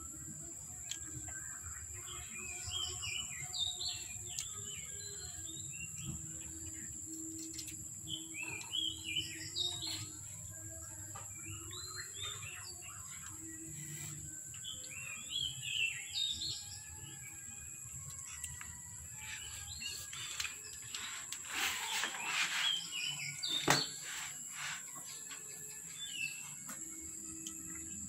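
Birds chirping in short, quick song phrases repeated every few seconds, over a steady high-pitched hiss. About three-quarters of the way through comes a brief rustling burst and a sharp click, the loudest sound.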